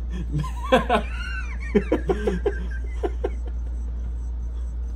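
Men laughing in a run of short bursts starting about a second in and dying away after about three seconds, over a steady low hum.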